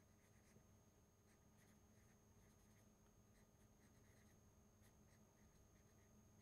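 Very faint strokes of a felt-tip marker on paper, writing out words: a run of short, soft scratches in quick succession.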